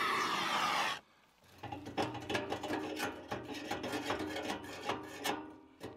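A propane torch flame hisses steadily for about a second and then cuts off abruptly. After a pause comes a run of irregular mechanical clicks and rubbing as a grease gun pumps grease into a lawn tractor's front spindle grease zerk.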